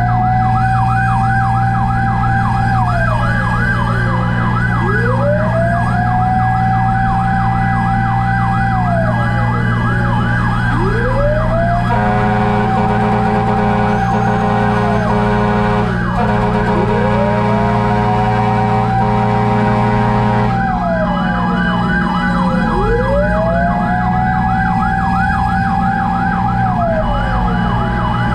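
Fire truck sirens over a running engine: a slow wail that rises, holds and falls about every six seconds, layered over a fast repeating yelp. A long steady horn blast joins about twelve seconds in and lasts about eight seconds.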